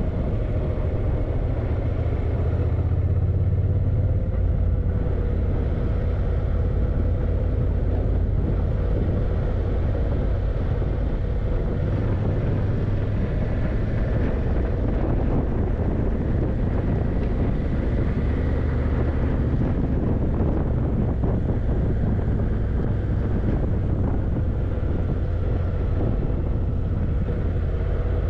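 Yamaha TDM900's parallel-twin engine running steadily on the move, over a heavy low rumble.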